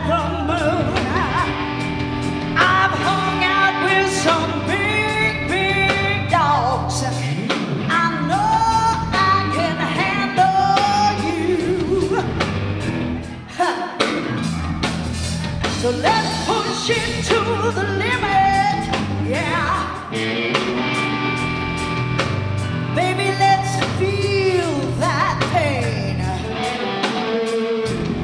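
Live electric blues band: a woman singing lead, her voice sliding between notes, over electric guitar, bass guitar and a drum kit keeping a steady beat.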